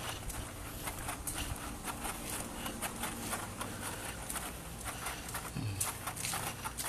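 Irregular footsteps and scuffs on hard paving, with rustling and knocks from a handheld phone being carried, over a steady low hum.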